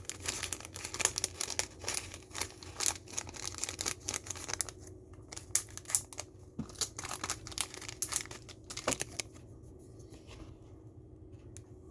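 Packaging being handled: rapid crinkling and rustling with scattered taps and knocks, which thins out and stops about nine seconds in.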